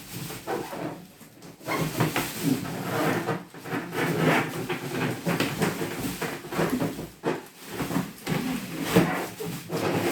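A microwave oven being pulled out of its cardboard shipping box: cardboard and packing material rubbing and scraping, with irregular knocks as the box is handled.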